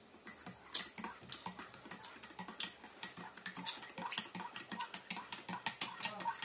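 Eating sounds: chewing and lip-smacking over chicken and noodles, heard as a dense run of soft, quick clicks, several a second, with a sharper click just under a second in.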